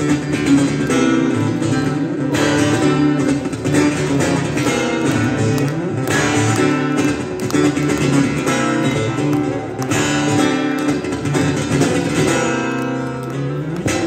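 Solo acoustic guitar, plugged in and played through an amplifier: an instrumental piece mixing plucked notes and strummed chords.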